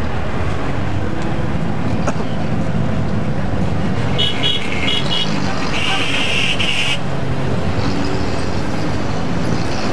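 City traffic heard from inside a moving taxi: engine and road noise throughout. About four seconds in, a quick run of short high horn beeps, then a single held horn note of about a second.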